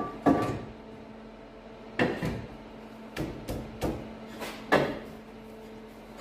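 Front bumper reinforcement bar of a BMW X3 F25 knocking and clunking against the car's front end as it is handled into place, about eight sharp knocks in irregular groups, some with a brief metallic ring.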